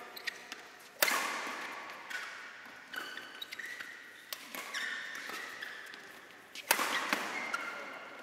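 Badminton rally: rackets hitting the shuttlecock, with two hard, sharp hits about a second in and near the end that echo through the hall, lighter hits in between, and court shoes squeaking on the floor.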